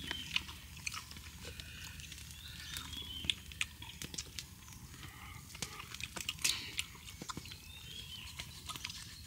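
Scattered small crackles and sharp clicks from a twig campfire burning, mixed with men chewing and tearing roasted meat close by.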